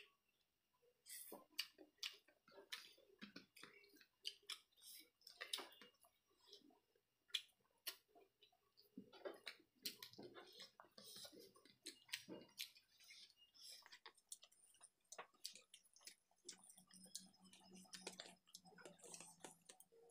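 Close-miked chewing and mouth smacking of two people eating chicken curry with rice and raw cucumber by hand: sharp, irregular clicks and crunches. A faint low hum joins near the end.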